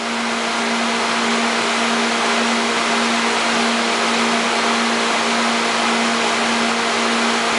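Steady machine-like hum: a constant low tone under an even hiss.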